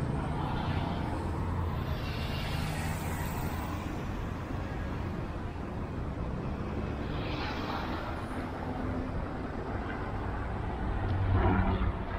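City street traffic: a steady background of running engines and passing cars, with a louder vehicle going by near the end.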